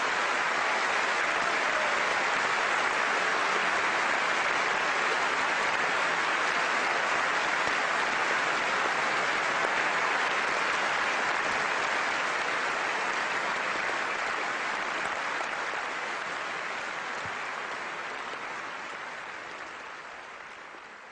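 Large audience applauding steadily after a speech, the clapping dying away gradually over the last several seconds.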